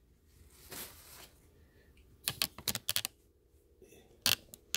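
A few light, sharp clicks and taps: a soft rustle about a second in, a quick cluster of clicks a little over two seconds in, and another click or two near the end.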